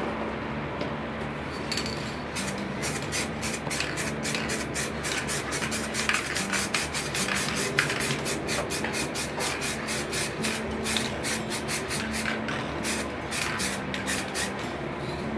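Aerosol spray paint can fired in rapid short bursts against paper, about three or four hisses a second, starting about two seconds in.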